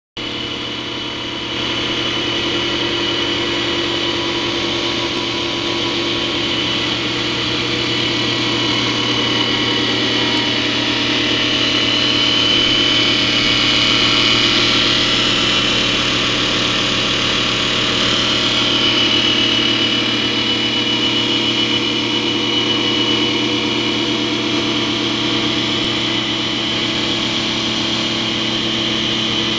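TC650E CNC wood lathe running while it turns a wooden baseball bat: a steady mechanical whine over a broad hiss. It gets louder about a second and a half in and swells a little in the middle.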